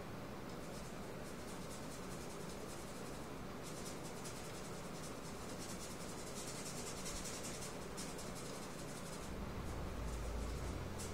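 Paintbrush scrubbing and dabbing paint onto the painting surface: quick, fine scratchy strokes in two spells with a short pause between, stopping about nine seconds in. A low rumble comes in near the end.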